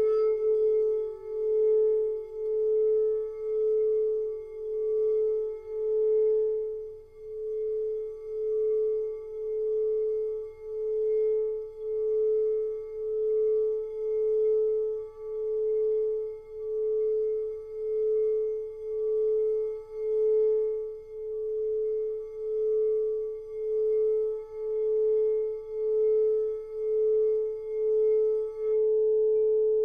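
Pressed quartz crystal singing bowl holding one steady tone, its sound swelling and fading in an even pulse about once a second. A second, lower bowl tone fades out in the first second.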